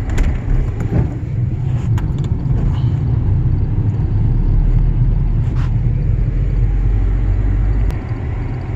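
Steady low rumble of a Ford Ranger pickup driving along at low speed, engine and road noise heard from inside the cab, with a few faint clicks.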